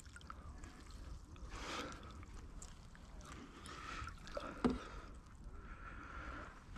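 Faint water splashing and sloshing as a hooked pike is played up to the landing net, with one short knock about two-thirds of the way through.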